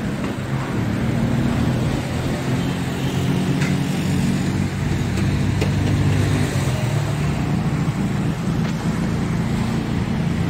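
Road traffic on a rain-wet street: a steady low engine hum from passing vehicles over the hiss of tyres on wet asphalt.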